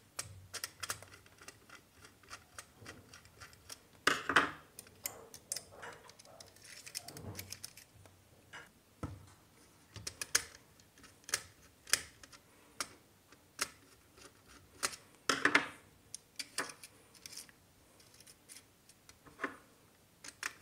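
Screwdriver tightening the brass terminal screws of modular switches on a plastic switch board as the phase wire is fastened to their input terminals: irregular small clicks and ticks of metal on screw and plastic, with two louder scrapes, about four and fifteen seconds in.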